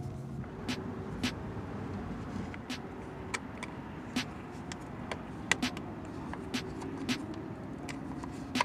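Scattered light clicks and taps from a Phillips screwdriver working the screw of a car's door-jamb switch, irregular and about a dozen in all. A steady low hum runs underneath.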